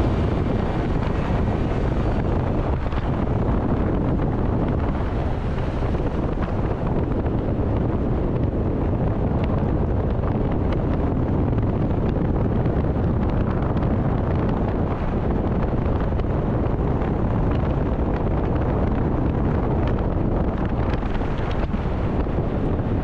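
Porsche Cayenne Coupe with the 3.0-litre V6 being driven at speed: a steady rush of wind and road noise with a low rumble underneath, unchanging throughout.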